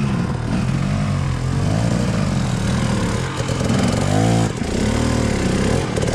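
Enduro dirt bike engine revving up and down with the throttle under load, its pitch rising and falling several times, heard from the rider's helmet.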